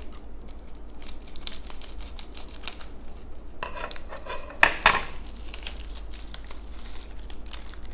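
Small plastic sachet of crispy cracker bits crinkling as it is snipped open with scissors and shaken out onto a plate of noodles, with light pattering of the bits landing and small clicks. Two sharper clicks come a little past halfway.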